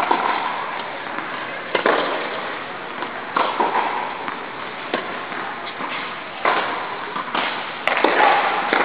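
Tennis ball struck by rackets in a rally, a sharp pop every second or two, each echoing through a large indoor tennis hall.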